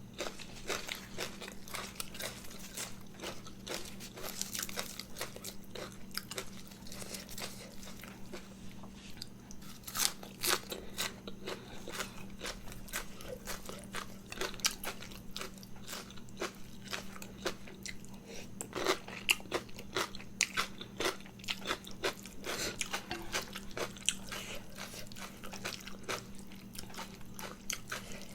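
A person chewing and crunching food close to the microphone, mukbang-style: many irregular crisp crunches and wet chewing clicks, heavier bites about ten seconds in and again near two-thirds of the way. A steady low hum runs underneath.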